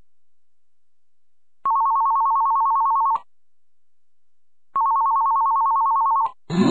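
Telephone ringing twice: two rings of about a second and a half each, each a fast-warbling two-note electronic trill, with a pause of about a second and a half between them.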